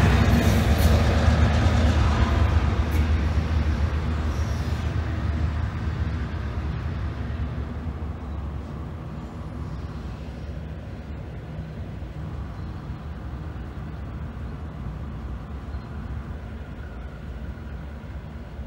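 Diesel locomotives (an EMD MP15DC and a GE B36-7) rumbling as they shove a freight train across the crossing. The sound fades steadily over the first several seconds as they move away, then settles to a lower, steady rumble.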